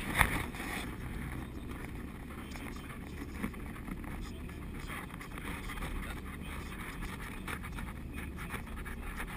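Steady road and engine rumble inside a moving car's cabin on a freeway, with a brief sharp knock right at the start.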